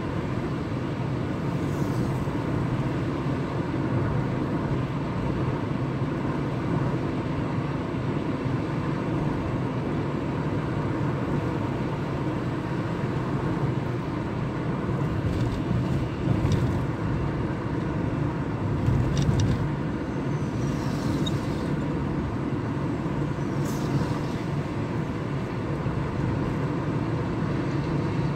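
Steady engine and tyre noise of a car driving along a highway, heard from inside the cabin, with a few faint, brief clicks.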